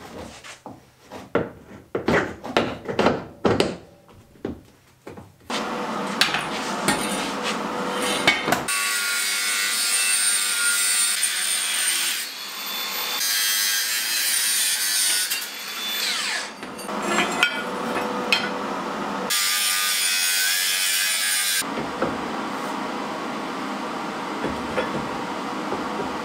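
A string of sharp metal knocks and clanks, then a cordless angle grinder cutting through the steel tubing of an old bed frame, in several runs with short breaks.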